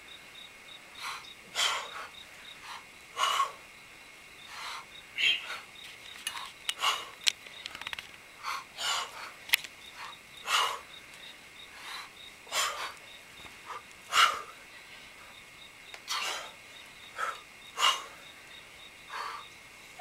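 Two people breathing out hard and short in time with heavy iron club swings, a sharp breath about every two seconds with softer ones in between.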